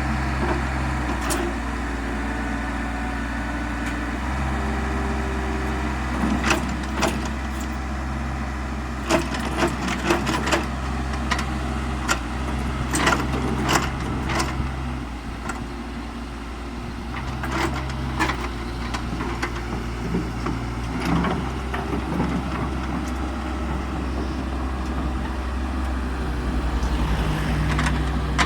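Excavator's diesel engine running steadily, its note stepping up and down with load, with a series of sharp knocks through the middle.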